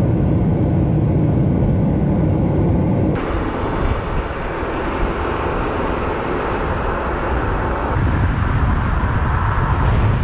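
Steady rumble of wind buffeting a GoPro's microphone, with tyre noise from a mountain bike rolling over a dirt trail. The sound changes abruptly about three seconds in and again near eight seconds.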